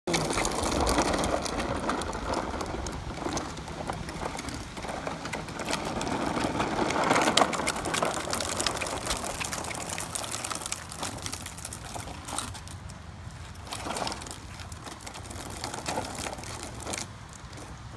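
A child's toy truck rattling and clattering as it is rolled along pavement, an uneven stream of small clicks that is louder in the first half.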